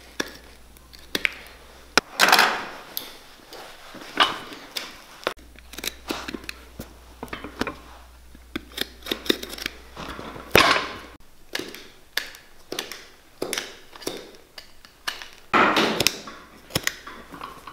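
Utility knife cutting through the stitching of a work boot's rubber welt: a run of sharp clicks and snaps as the threads part, with a few longer scraping strokes as the blade drags along the welt.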